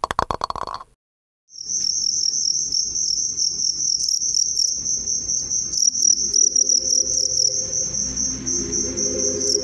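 A cricket chirping: a continuous, rapidly pulsed high-pitched trill that starts about a second and a half in, after a few short clicks at the very start.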